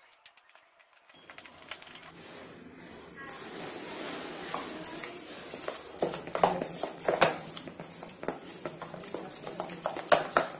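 Thick gram-flour (besan) batter being mixed by hand with water in a plastic bowl: irregular wet slaps and squelches that start about a second in and grow more frequent.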